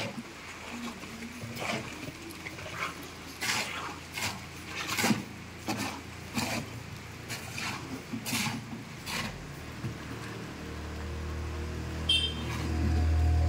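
Irregular soft knocks and rustles, then from about ten seconds in a vehicle engine approaches, a low steady hum that grows louder. A short high chirp comes near the end.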